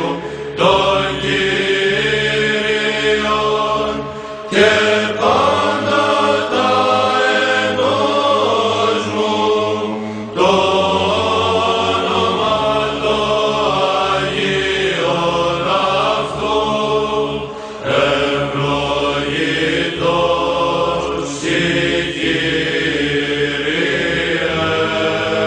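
Male monastic choir chanting Byzantine psalmody in Greek: a melody line sung over a steady held drone (the ison), in long phrases with brief breaks where new phrases begin, about three times.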